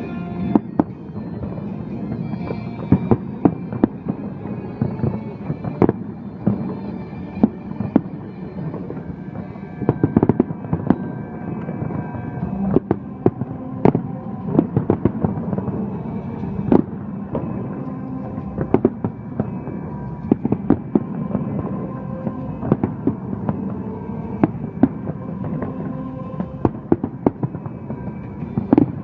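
Fireworks display going off: frequent, irregular bangs and crackles of bursting shells, some in quick clusters, with steady held tones underneath.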